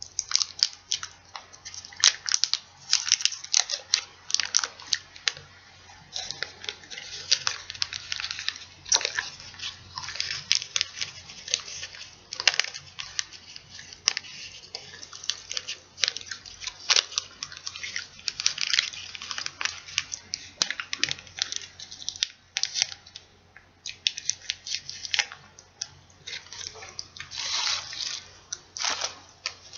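Reese's peanut butter cup wrappers, the outer plastic and the paper cup, crinkling and tearing as they are peeled off by hand, in irregular crackly bursts.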